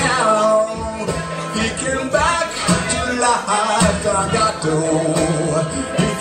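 Acoustic guitar played with a man singing over it.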